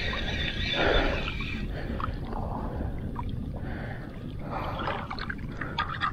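Water splashing and sloshing at the side of a small fishing boat while a hooked fish is fought. The loudest splash comes about a second in and another near five seconds.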